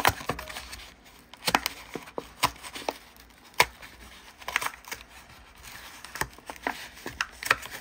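Hot Wheels blister pack being peeled open by hand: the clear plastic blister crackles and the cardboard backing card tears in irregular sharp clicks and crinkles. The loudest snap comes about three and a half seconds in.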